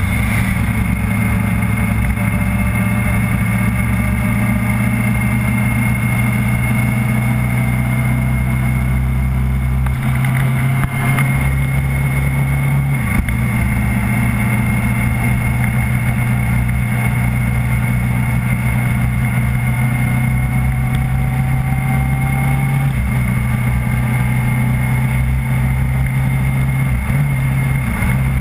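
Onboard vehicle engine running at low road speed, a steady drone whose pitch rises slowly and steps down a few times, with road and wind noise and a faint steady high whine.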